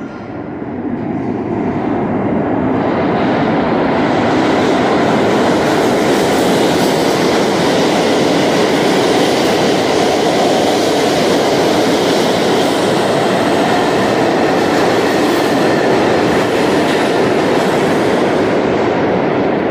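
New York City subway train running past the platform on the next track: a loud, steady rumble of wheels on rail that builds over the first few seconds and then holds.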